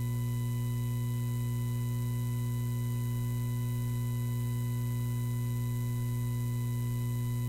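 Steady low electrical hum with a few faint fixed higher tones above it.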